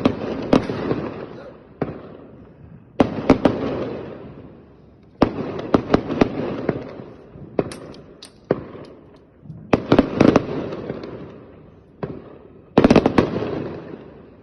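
Fireworks going off in volleys: sharp bangs, often several in quick succession, each volley trailing off over a second or two before the next.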